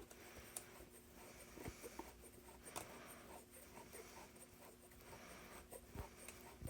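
Faint scraping and small clicks of a steel jig bore vise's screw and jaw being worked by hand. The screw is stiff and backs out harder than it goes in.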